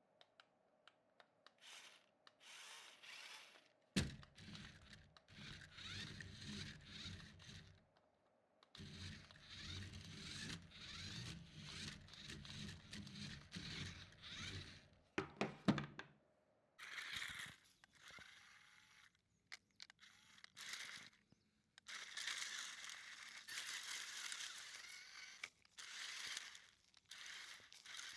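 RC monster truck driving over rough ground: its small electric motor runs in two spells with scraping and crunching from the wheels, starting with a knock. It is followed by scratchy rustling without the motor.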